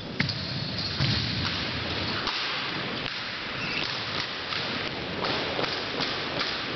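An armed drill team at work: sharp slaps of hands on rifles and thumps of boots on a hardwood gym floor. A sharp crack just after the start and a heavy hit about a second in, then a fairly even run of slaps and thumps, about three a second, near the end.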